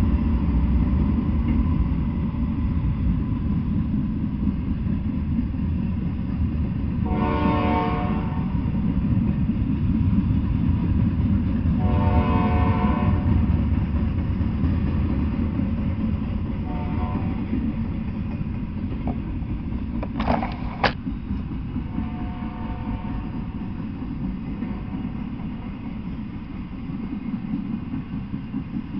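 Freight train of double-stack container cars and autorack cars rolling past with a steady low rumble of wheels on rail. A train horn sounds two longer blasts, one about seven seconds in and one about twelve seconds in, then shorter, weaker ones later. Two sharp clanks come a little after twenty seconds in.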